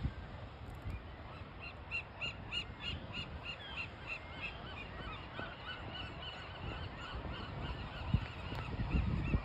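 A gull colony calling: many short rising-and-falling notes, repeated about three a second and overlapping, strongest from about two seconds in, over a low rumble of surf.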